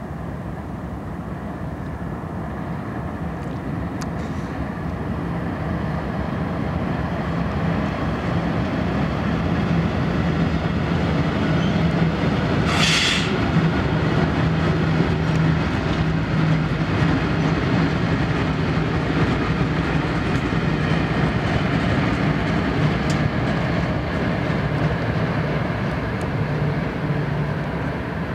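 Freight train hauled by several diesel locomotives passing: a steady engine drone with the rumble of rolling wheels, growing louder over the first ten seconds or so and then easing slightly, with one short hiss about thirteen seconds in.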